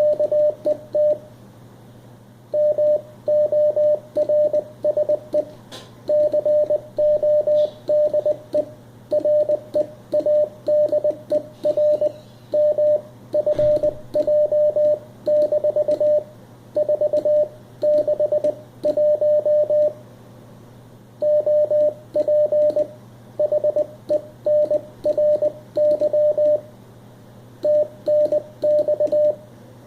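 Morse code (CW) tone at one steady pitch, keyed on and off in quick groups of dots and dashes with short pauses between words, over a low steady hum.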